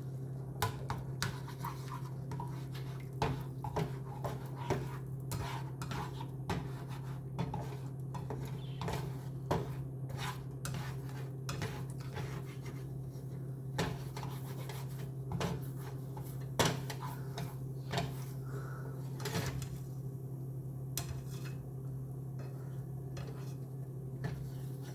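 Kitchenware clatter: dishes and utensils knocking and scraping in irregular clicks, over a steady low hum.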